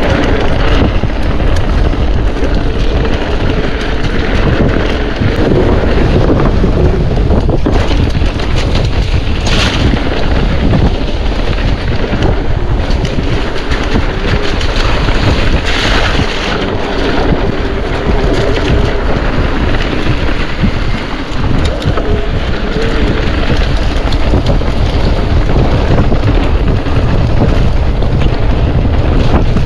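Steady wind noise buffeting the microphone of a camera riding along on a mountain bike, mixed with the rumble of the bike rolling over the trail.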